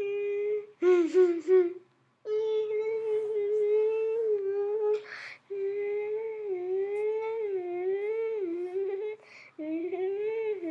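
A child humming long held notes whose pitch slowly wavers up and down, broken by a few short pauses for breath.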